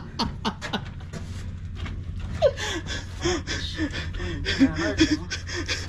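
Men laughing breathlessly in short, repeated gasps, mixed with scattered sharp clicks and knocks.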